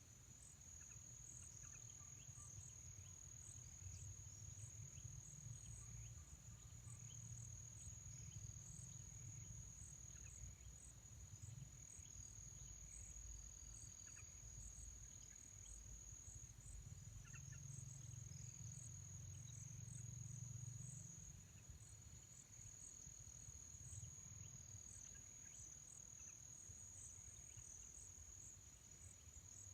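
Faint, continuous high-pitched insect trill, a steady tone with a rapid pulsing, over a low outdoor rumble and a few faint short chirps.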